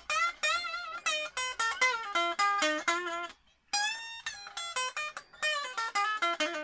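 Epiphone Les Paul Special electric guitar played as a quick run of single picked notes, with a short pause about halfway through and a few notes bent in pitch.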